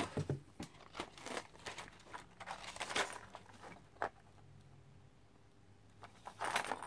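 Paper instruction sheet of a plastic model kit being handled, crinkling and rustling in quick crackles for about four seconds, then going quiet, with one more rustle near the end.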